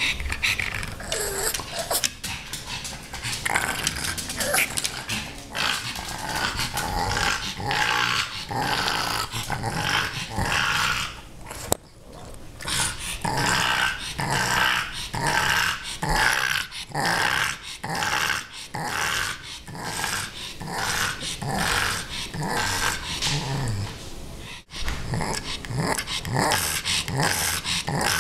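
Pug making repeated growly play noises, short rough calls at about one a second with a brief pause about halfway through: a pug soliciting play from a kitten.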